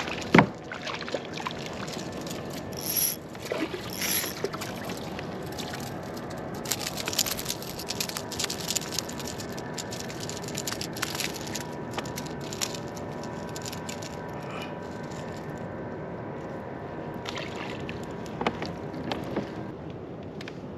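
Water sloshing around a fishing kayak, with knocks and scrapes of gear against the hull. A sharp knock about half a second in is the loudest sound, and a run of small clicks and taps follows from about six to thirteen seconds in.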